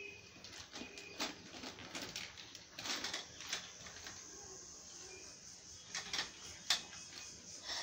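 Plastic packaging crinkling and rustling in the hands, with small hard clicks and taps, as the parts of a steel-tube wardrobe are unwrapped and handled.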